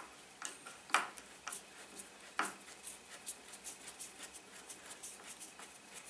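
Small metal clicks and ticks from a hand tool turning the motorcycle brake lever's new pivot pin into its thread, hand-tight only. There are a few sharper clicks in the first couple of seconds, then quicker, fainter ticking.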